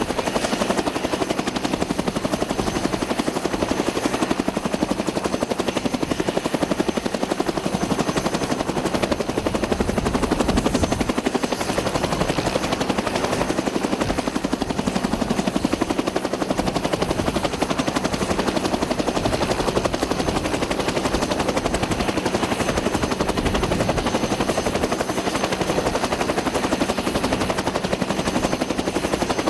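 Aircraft running steadily on the ground, a loud continuous drone with a fast, even chopping pulse and a faint high whine.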